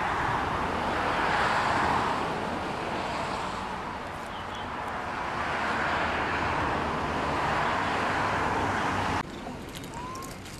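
Road traffic: vehicles passing on a road, the noise swelling and fading twice, then cut off suddenly near the end.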